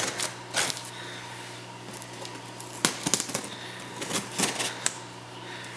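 Scissors cutting the packing tape on a cardboard box: a scattering of sharp, irregular snips and clicks.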